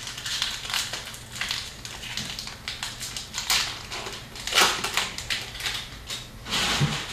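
Trading cards and their packaging being handled: a string of crisp crinkling rustles, loudest about four and a half seconds in and again near the end.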